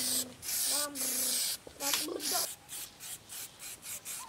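Aerosol spray can of anti-gravel underbody paint hissing as it coats a van's wheel arch. It gives a few longer sprays, then short, quick bursts about three a second from about halfway in.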